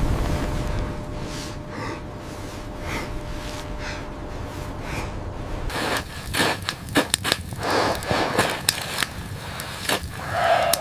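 A person breathing hard over a low rumble, then about six seconds in a quick run of sharp clicks, knocks and scrapes.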